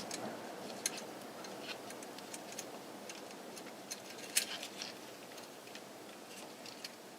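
Faint, irregular light clicks and ticks of turn signal switch wiring being fed down through a steering column, the loudest about four and a half seconds in.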